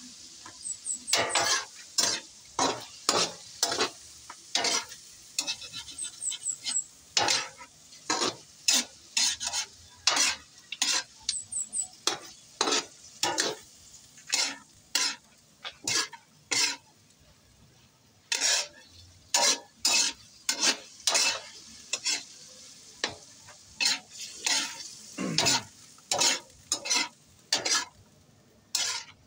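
Metal ladle scraping and clinking against a steel wok in irregular strokes, roughly one or two a second, while meat fries in it with a steady sizzle that fades after the first few seconds.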